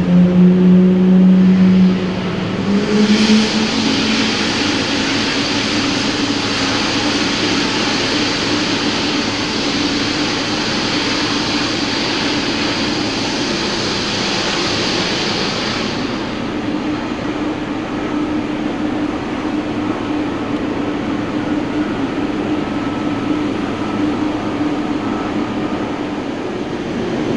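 Boeing 777 jet engines running steadily during pushback, a low hum with a hiss on top. The hum steps up in pitch about three seconds in. The hiss fades about sixteen seconds in, leaving the steady hum.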